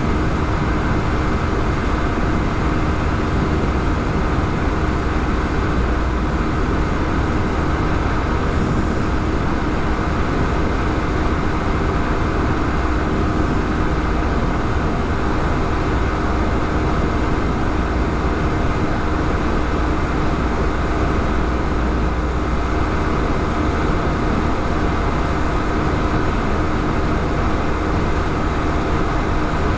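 Motorcycle riding at a steady speed, its engine note held even throughout over a heavy low rumble.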